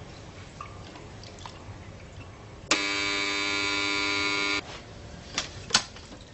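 An electric buzzer sounds one steady, harsh tone for about two seconds and cuts off sharply. Two sharp clicks follow soon after.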